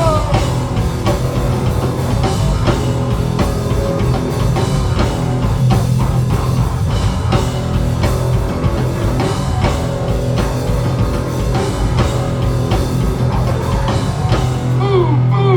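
Live punk/hardcore band playing an instrumental intro: distorted electric guitars, bass and a pounding drum kit, loud and dense.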